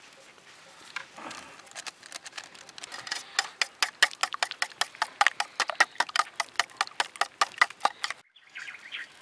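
A spoon beating raw eggs and spices in a hammered steel bowl: quick rhythmic clinks of metal on metal, about six a second, growing louder after a slow start, then cutting off suddenly near the end.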